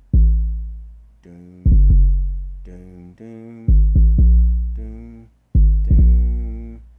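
808 bass notes played back from a sampler: four deep hits about every two seconds, each with a sharp click at the start and a long fading boom, over a higher pitched instrument layer.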